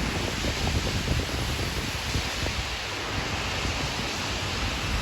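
Wind buffeting the microphone: irregular low rumbling gusts over a steady rushing noise.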